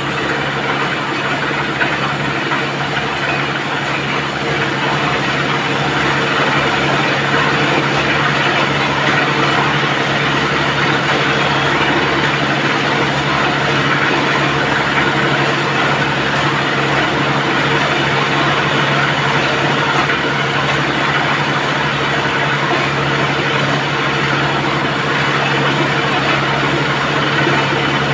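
Tractor-mounted borewell drilling rig's engine running at a steady drone, with water gushing and splashing out of the borehole around the drill pipe.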